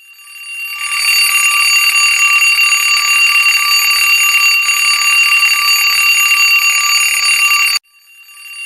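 Alarm clock ringing: a steady ring that swells in over about a second, stops abruptly about a second before the end, then begins swelling in again.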